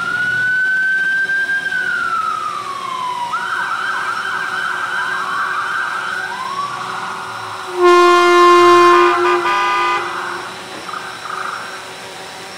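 Emergency vehicle sirens from a passing police parade: a slow wail that rises and falls, then a rapid yelp, then a loud horn blast of about two seconds about two-thirds of the way through, with fainter siren bursts after it.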